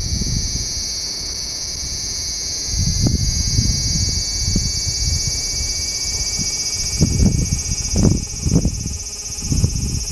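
Large brown cicada (Graptopsaltria nigrofuscata) singing a continuous, high-pitched sizzling drone, which grows slightly fuller and louder about two and a half seconds in. Irregular low rumbles sound underneath.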